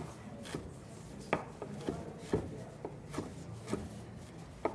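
Chef's knife dicing pineapple on a wooden cutting board: about a dozen light, uneven knocks of the blade striking the board.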